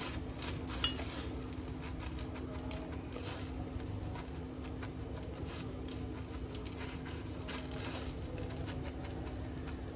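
Hands tossing batter-coated bread pieces in dry breadcrumbs in a stainless steel bowl: soft crumbly rustling with light taps against the bowl, and one sharp click about a second in. A steady low hum runs underneath.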